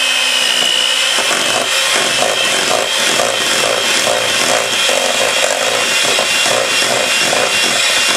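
Electric mixer running steadily, its beaters creaming softened butter in a mixing bowl: a high motor whine with a rhythmic churning that starts about a second in, at roughly two beats a second.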